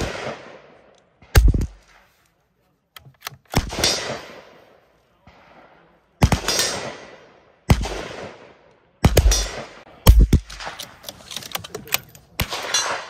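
Rifle shots from several guns on a shared firing line, about ten in all at irregular intervals. Each is a sharp crack followed by an echoing tail; the loudest come right at the start, at about one and a half seconds in, and around nine and ten seconds in.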